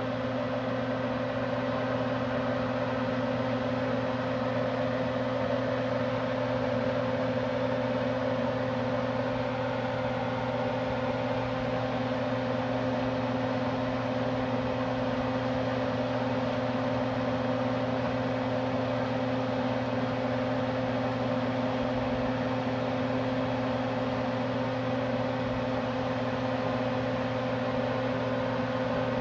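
Kitchen range hood exhaust fan running, a constant motor hum over a steady rush of air.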